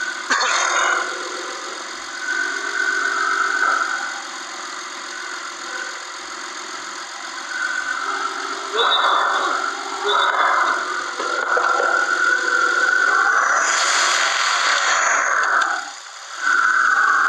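Peugeot car engine running under the bonnet, left running so the water pump's coolant circulation can be checked at the open bleed nipple. A louder rushing noise swells for a couple of seconds near the end.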